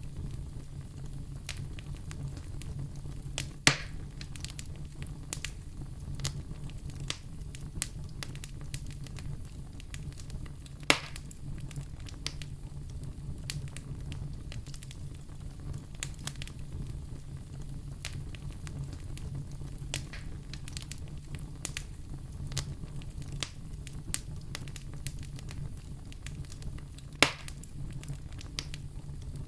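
Wood fire in a fireplace crackling steadily: a constant low rumble under many small snaps, with three sharp, louder pops about 4, 11 and 27 seconds in.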